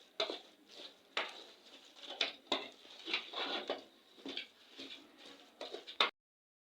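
Kitchen utensils and pots clattering during cooking: irregular knocks and scrapes several times a second, cutting off abruptly near the end.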